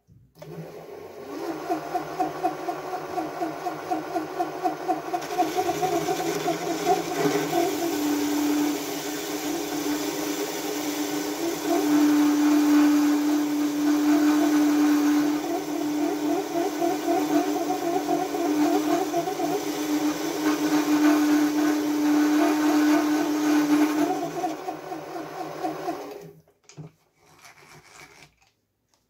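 Small benchtop metal lathe running with its three-jaw chuck spinning, the motor and gearing whirring. The sound pulses about four times a second at first, then settles into a steadier hum with a strong steady tone, and stops about 26 seconds in when the lathe is switched off.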